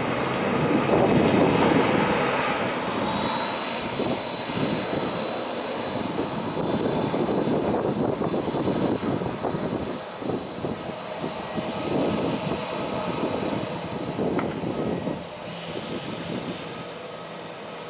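Jet aircraft engines running on the airfield, a dense rushing noise with a thin, steady high whine. It is loudest about a second or two in and fades gradually toward the end.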